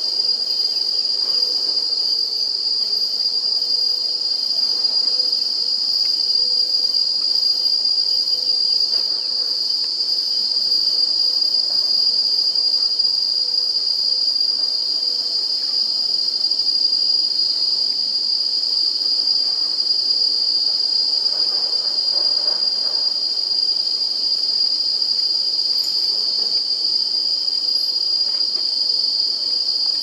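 A steady, high-pitched drone of insects, unbroken and even in level.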